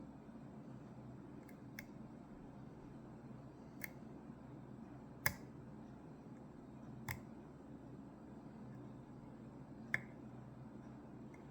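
Faint, scattered metallic clicks from picking tools working a Ruko 600 pin-tumbler lock cylinder with barrel drivers and counter-milled pin chambers. There are about six irregular clicks, the sharpest about halfway through, over a steady low hum.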